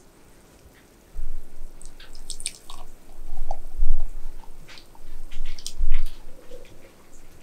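Thick blueberry smoothie poured from a blender jug into a glass tumbler. It starts about a second in and goes on in irregular wet glugs and splats, with deep thuds at the heaviest gulps.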